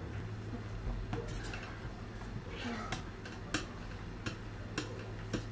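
A rolling pin rolling out fondant on a worktop, with a few sharp clicks and knocks as it taps the counter, over a steady low hum.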